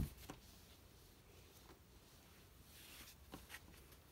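Faint handling of cotton T-shirt strips being stretched out by hand, with a sharp knock right at the start and a few soft taps and rustles after it.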